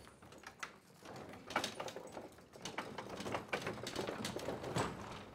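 Irregular clatter and knocks of ox hooves, footsteps and a wooden cart on a cobblestone street. The knocks get busier and louder from about a second and a half in.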